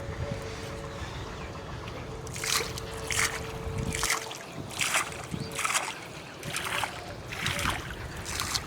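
Water splashing and sloshing in a run of short strokes, roughly one or two a second, starting about two seconds in. It sounds like water being worked by hand or by wading in a shallow canal.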